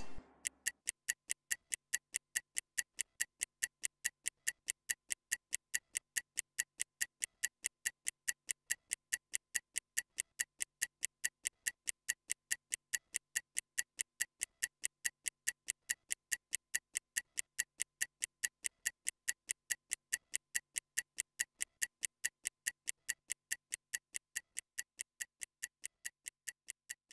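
Stopwatch ticking sound effect marking a 30-second rest interval: rapid, even ticks, several a second, growing fainter near the end.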